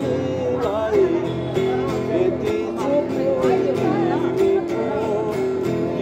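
Background music: a song with a singing voice and a steady beat.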